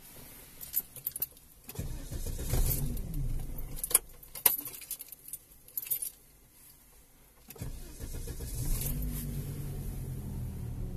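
Ignition keys jingling, then a car engine started. It runs for a few seconds and stops about six seconds in, is started again about a second and a half later, and settles into a steady idle.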